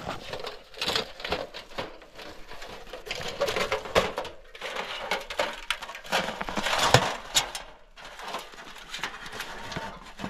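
Thin metal panels of a folding camp-stove firebox clinking, rattling and knocking as it is unfolded and assembled by hand: a string of irregular clicks and clanks, with a louder cluster about seven seconds in.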